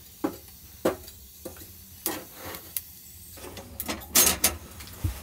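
Split kindling sticks being loaded into a small steel wood stove: a string of light, irregular knocks and clunks of wood against wood and metal, busiest about four seconds in.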